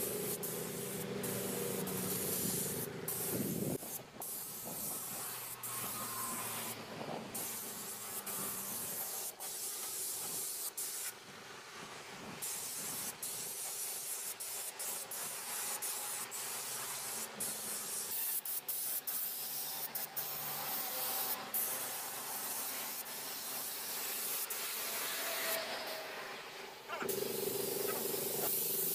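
Compressed-air paint spray gun hissing as paint is sprayed, cutting out briefly now and then as the trigger is let go. A steady hum is heard in the first few seconds and again near the end.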